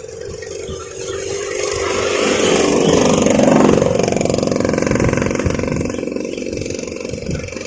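Combine harvester engine running steadily, swelling louder to a peak about three and a half seconds in and then easing off somewhat.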